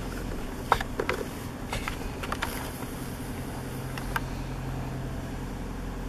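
Car running with a low steady drone of engine and road noise heard inside the cabin, with several sharp clicks and knocks in the first half and one more about four seconds in.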